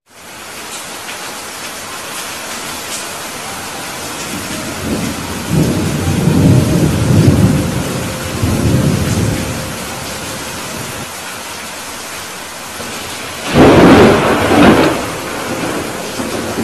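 Steady heavy rain with thunder: a low rolling rumble swells from about five to nine seconds in, and a sharper crash of thunder comes about fourteen seconds in.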